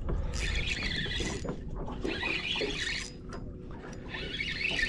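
Fishing reel's drag buzzing in three runs of about a second each while a hooked fish pulls line off the reel.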